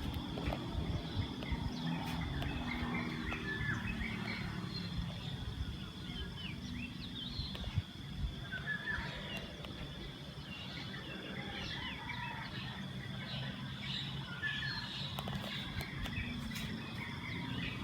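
Many birds chirping, in short scattered calls, over a steady high whine and a low steady hum.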